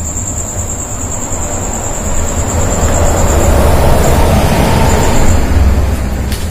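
A motor vehicle passing on a nearby road: a low rumble and road noise that swell to a peak about four to five seconds in and then fade.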